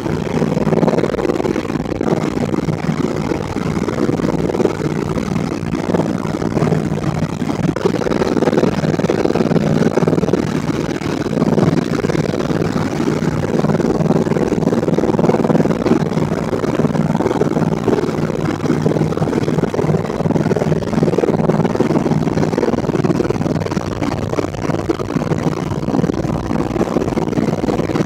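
Helicopter rotor and engine noise heard from inside the cabin: a loud, steady drone with no let-up.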